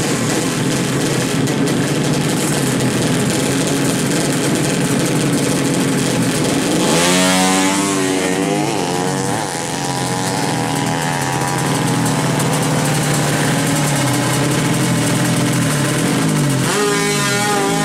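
Several tuned drag-race motorcycle engines running together, among them a purple two-stroke Kawasaki Ninja in tune-up spec. A rev rises and falls about seven seconds in, and another rev starts near the end.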